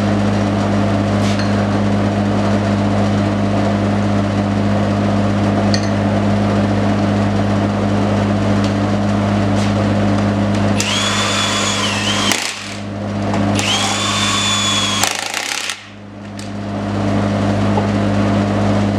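Power tool run in two bursts of about a second and a half each, about eleven and fourteen seconds in, with a high whine: tightening the lug nuts as the wheel is mounted back on. A steady low hum runs underneath throughout.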